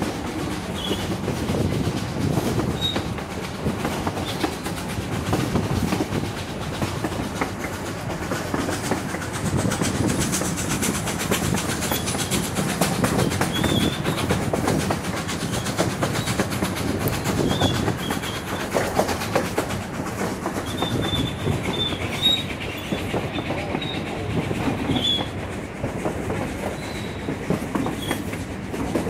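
Durango & Silverton narrow-gauge passenger train rolling along, heard from an open car: a steady rumble and clickety-clack of wheels over the rails, with short high wheel squeaks now and then.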